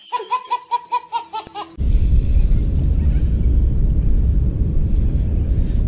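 A baby laughing: a fast run of high-pitched laughs, about five a second, lasting under two seconds and then cutting off. A steady low rumbling noise follows.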